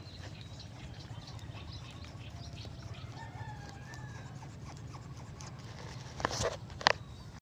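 Roosters crowing and chickens clucking faintly over a steady low background. Near the end come two sharp knocks about half a second apart.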